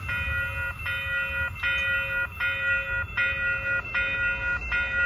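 Railway level-crossing warning bell ringing in a steady repeating strike, about one every three-quarters of a second, with a low rumble underneath. The signal is still active while the crossing gate arm lifts after the train has cleared.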